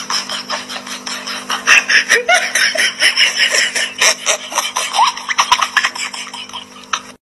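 People laughing over a dense, rapid clatter of clicks and scraping.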